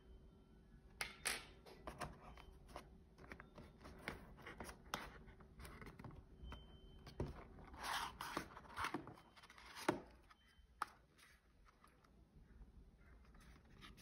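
Paperboard mouse packaging being handled: the box and a cardboard insert sleeve scraping and rubbing against each other, with scattered light taps and clicks, the sharpest about ten seconds in.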